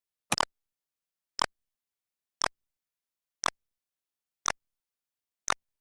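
Short, sharp clicks repeating evenly about once a second, six in all, with dead silence between them.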